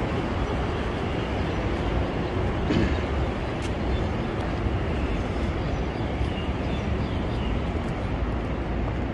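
Steady rumble of surrounding city traffic: a constant noise with no distinct events in it.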